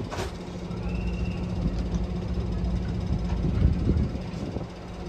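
A train's diesel engine running with a steady low drone. A brief high squeal comes about a second in.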